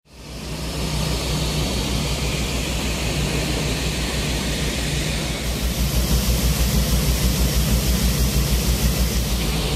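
Firefighting amphibious aircraft's engines running: a steady rushing noise over a low, rapid throb, growing somewhat louder about halfway through.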